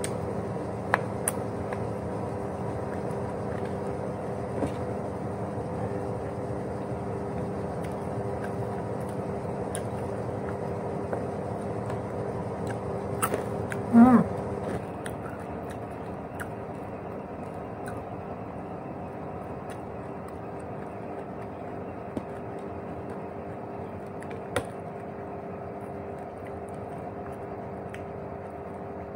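Quiet eating with a few faint clicks of chewing or utensils over a steady electrical hum, and a short hummed 'mm' from the eater about 14 seconds in.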